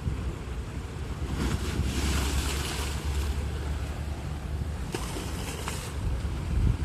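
Sea waves breaking and washing up the shore, the surf swelling twice, about a second and a half in and again about five seconds in, over a steady low rumble of wind on the microphone.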